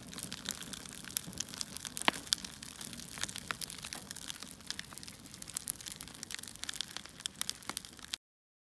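Crackling wood-fire sound: many small snaps and pops over a soft hiss, cutting off abruptly a little after eight seconds in.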